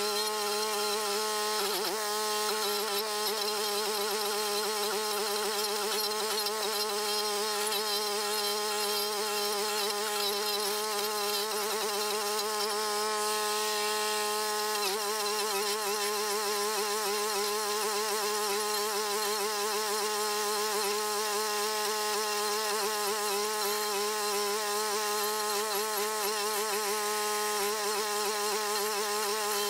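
Gasoline engine of a Toro walk-behind stump grinder running with a steady buzzing whine while its cutting wheel grinds down a stump, the pitch dipping briefly twice, about two seconds in and near the middle, as the cutter bites.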